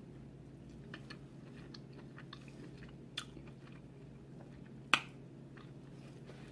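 A person chewing king crab meat close to the microphone, with soft scattered mouth clicks and a sharper click about five seconds in.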